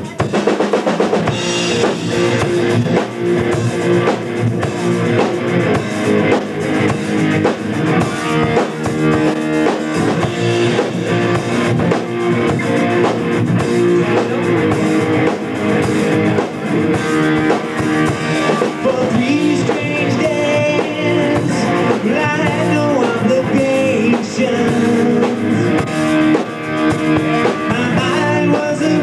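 Live rock band playing with drum kit, electric guitars and keyboard, and a man's singing voice coming in during the later part.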